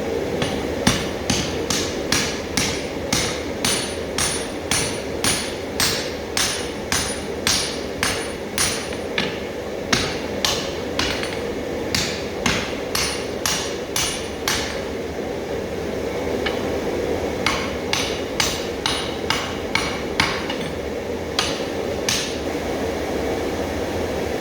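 Hand hammer striking hot iron on an anvil, about two blows a second for some fourteen seconds, then a short pause and a second, shorter run of blows. A steady hum runs underneath.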